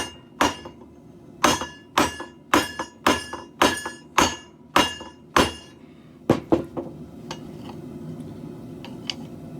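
Forging hammer striking hot steel on an anvil, about two ringing blows a second, pounding the middle of a garden hoe blank. About a dozen blows, which stop a little past halfway.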